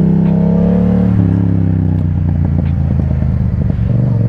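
Yamaha motorcycle engine in first gear, heard from the saddle: the revs climb for about a second, then fall as the throttle is closed, and the engine runs on at lower revs, steadying near the end.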